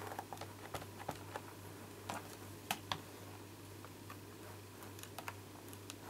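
Light clicks and taps of hard plastic being handled on a Stamparatus stamping platform as a stamp-set case is slid under it and the stamp and paper are set in place, with two sharper clicks a little under three seconds in.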